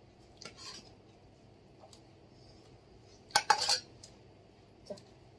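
Metal serving spoon clinking against a serving bowl and plates: a soft scrape about half a second in, a loud clatter of clinks about three and a half seconds in, and one small click near the end.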